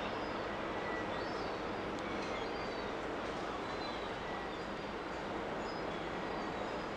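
Steady low drone of ship engines carrying across the water, with small birds chirping faintly now and then.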